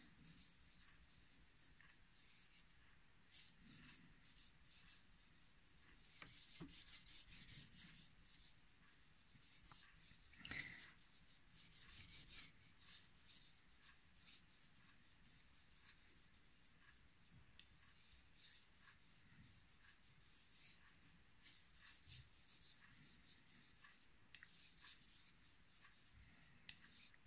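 Kitchen knife stroked back and forth on a wet 2000-grit Chinese natural whetstone coated in slurry: a faint, soft rasping scrape that comes and goes with each pass.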